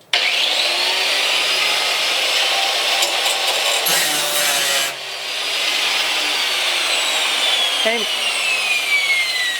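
A 4.5-inch angle grinder with a grinding disc, not a cutting wheel, cutting into steel. It starts abruptly, eases briefly about halfway through, and a falling whine sounds in the second half.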